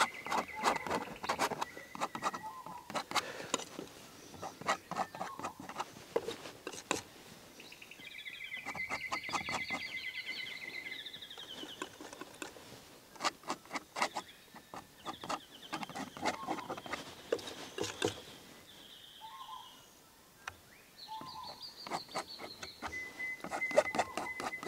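Palette knife dabbing and scraping oil paint onto a stretched canvas, a run of short taps and scrapes. Birds call in several trilling phrases in the background.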